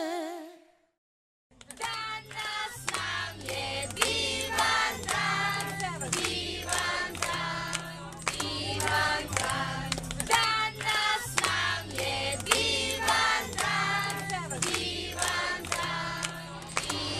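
Music fades out, and after a second of silence a group of people sing together over a song with a steady bass line, clapping along to the beat.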